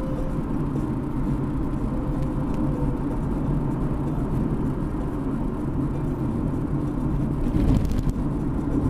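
Steady road and engine rumble inside a moving car. A brief louder rush comes about seven and a half seconds in.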